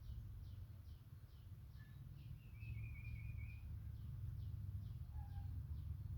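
A small bird repeating a short, high, falling chirp about twice a second, with a brief warbling call about halfway through, over a steady low background rumble.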